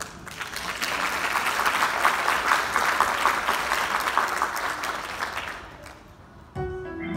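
Audience applauding, a dense patter of claps that swells and then fades out about six seconds in; music starts just before the end.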